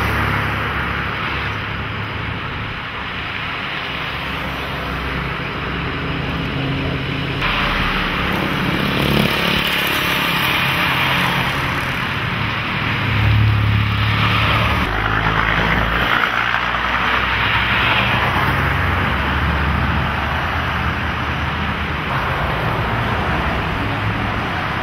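Road traffic: engines of cars and work trucks running and passing, with tyre noise. The level and mix change abruptly a few times.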